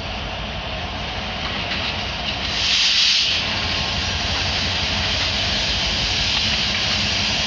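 Diesel locomotives rumbling steadily in a rail yard, with a loud burst of hissing about three seconds in.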